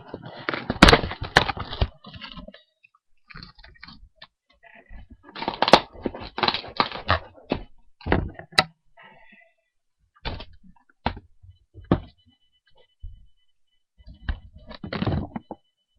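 Cardboard shipping box being cut with scissors and torn open by hand: irregular bursts of ripping and crunching cardboard, with sharp cracks and knocks in between.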